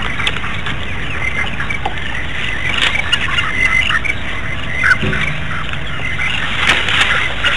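Wild birds calling in the bush: many short, harsh chirps and squawks in quick succession, over a steady hiss, with a brief low tone about five seconds in.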